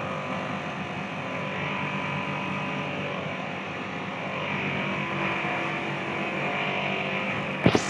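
A machine running with a steady hum made of several constant tones over a rushing noise. Two sharp clicks come near the end.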